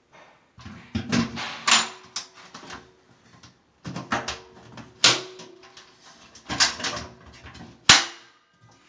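A series of sharp knocks and clatters, about six of them at irregular intervals, some with a brief ringing, like hard objects being handled; no motor runs.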